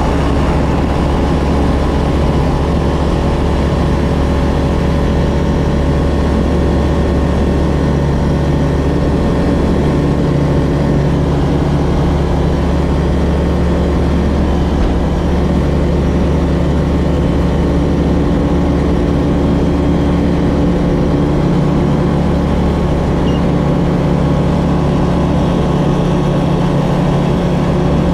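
Single-engine light aircraft's piston engine running at a steady drone, with no change in pitch or level.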